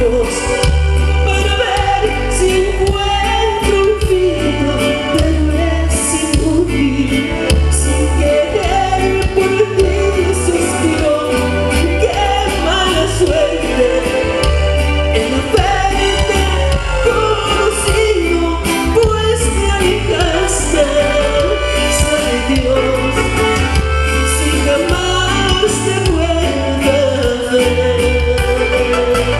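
Live grupero band playing through a loud PA: keyboard, guitars and drums over a steady bass beat, with a man singing lead.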